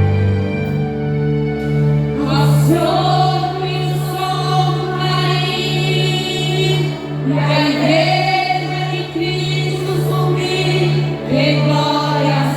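Women's choir singing a gospel hymn over instrumental accompaniment with a steady, evenly pulsing bass. The voices come in about two seconds in and carry on in long phrases.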